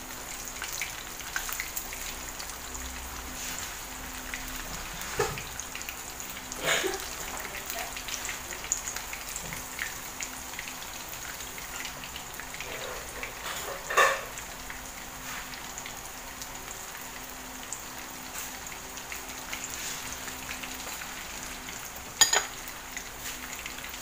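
Breaded fish fillet frying in hot cooking oil in a pan: a steady sizzle with crackling, and a few sharper clicks.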